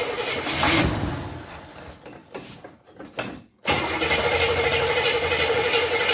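A car engine being started on starting fluid sprayed into its carburetor: it turns over and runs unevenly, swells about half a second in, then fades away to near quiet. A little past halfway the same steady engine sound comes back abruptly.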